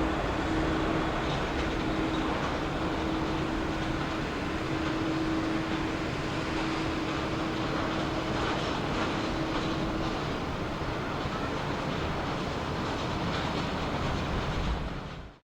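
Steady rumble of a Boeing 747-400's jet engines, with a held hum through the first two-thirds; the sound cuts off abruptly near the end.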